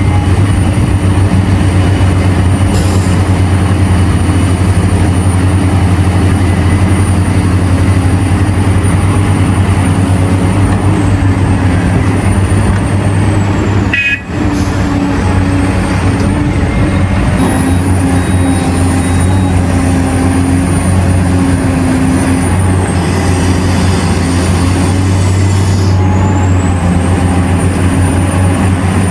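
Heavy diesel engines of mining excavators and haul trucks running steadily at a constant low pitch. The sound drops out briefly about halfway through.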